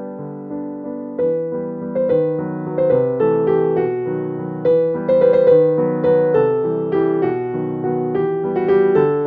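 Background piano music: a gentle melody of single struck notes that ring and fade one after another.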